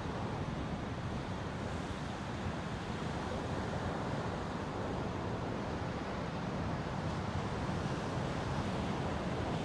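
Ocean surf washing steadily onto the beach, mixed with wind blowing on the microphone.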